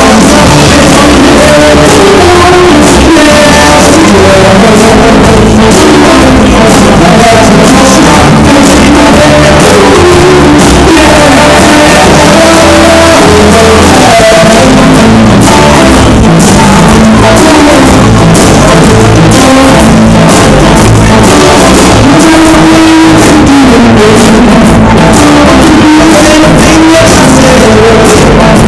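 Rock band playing loudly, with electric guitar, drums and a singing voice.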